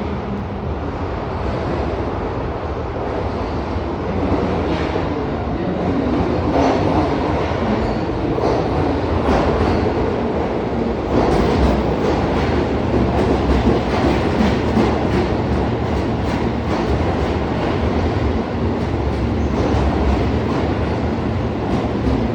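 Keihan electric train running on the rails, a steady running noise that grows somewhat louder over the first several seconds, with irregular clicks of the wheels over the track.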